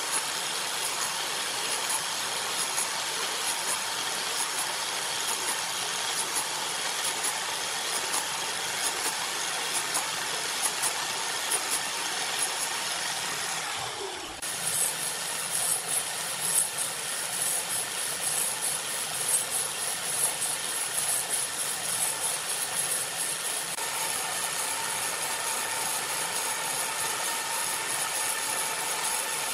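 Electric angle grinder with a carving disc grinding into a log turning on a wood lathe: a steady high-pitched grinding. It dips briefly about halfway through and comes back rougher, with more ups and downs in level.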